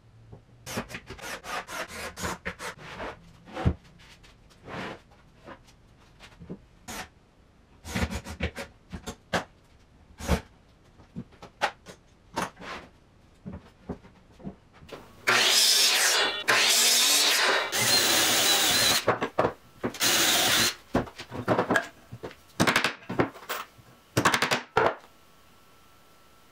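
Cabinet assembly in a wood shop: plywood panels and tools knock and clatter on the workbench again and again. From about halfway through, a cordless drill/driver runs in several loud bursts lasting a second or two each.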